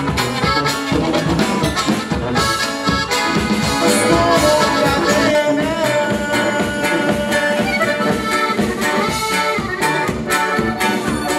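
Live norteño-style dance band playing: an accordion carries the melody over a brass bass line, drums and guitar, with a steady dance beat.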